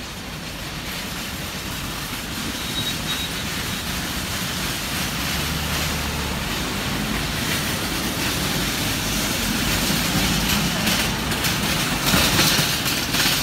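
Hong Kong double-decker electric tram running past on its street rails, its steel wheels rumbling and clacking, mixed with city traffic noise and growing louder toward the end.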